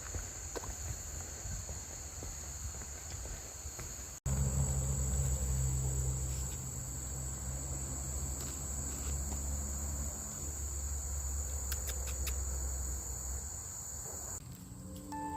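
Insects, such as crickets, trilling steadily in one high-pitched drone. About four seconds in there is an abrupt cut, and a low rumble runs under the trilling for most of the rest; the trilling stops just before the end.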